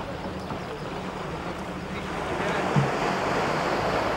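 Sea waves washing with wind on the microphone: a steady rushing noise that swells about two seconds in.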